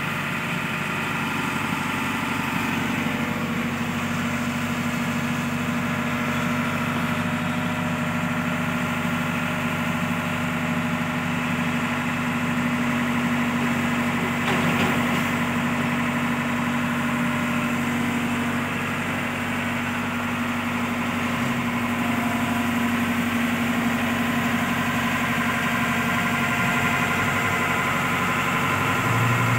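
Excavator diesel engine running steadily near idle, a low even hum with no change in speed; a deeper note comes in right at the end.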